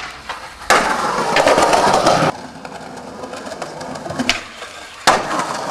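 Skateboard wheels rolling over concrete paving: a loud stretch for about a second and a half, then quieter, then loud again near the end, each stretch starting and stopping abruptly.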